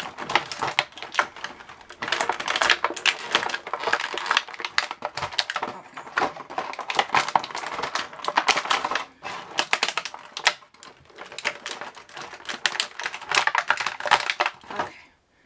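Clear plastic blister packaging and wrapping crinkling and crackling in dense, irregular clicks as a fingerboard is pried out of its tight-fitting tray, with short lulls between bouts of handling.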